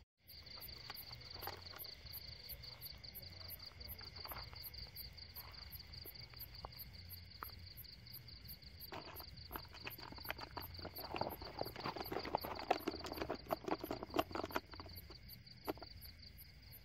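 Night insect chorus of crickets: a steady high trill with a faster chirp above it, pulsing about three times a second. In the second half come a spell of rustling and crackling clicks from handling.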